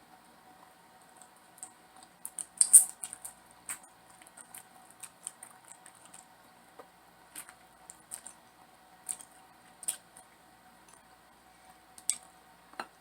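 Close-up eating sounds of a person chewing food: scattered sharp wet mouth clicks and smacks, with a louder cluster of them about three seconds in.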